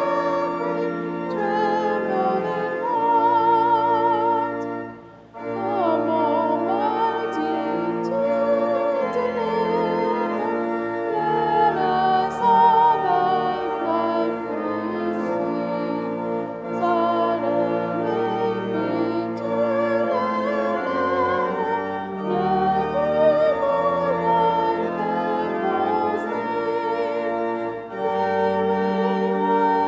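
Singing voices with vibrato over organ accompaniment holding sustained chords, with a short break between phrases about five seconds in.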